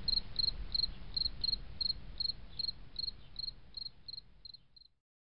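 Crickets chirping steadily, about three chirps a second over a faint low rumble, fading out and stopping near the end.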